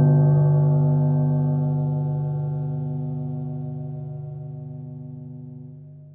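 Keyboard's final sustained chord, the song's last notes, held and fading away slowly and evenly.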